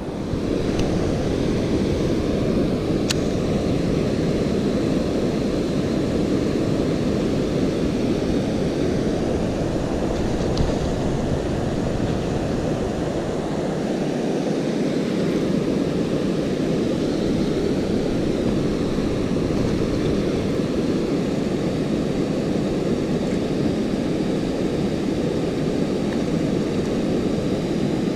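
Steady low rushing noise of wind and flowing river water, with a faint tick about three seconds in.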